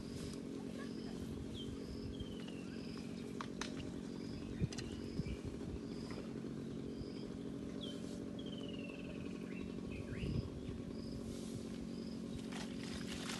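Background birdsong: a bird repeats a short high note at a steady pace, with a couple of longer falling whistles, over a steady low hum and a few faint clicks.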